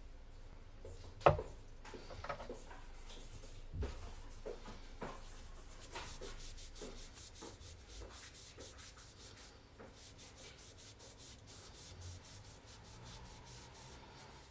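Cotton rag rubbing boiled linseed oil into a wooden knife handle: a faint, steady cloth-on-wood rustle. A few knocks fall in the first few seconds, the loudest about a second in.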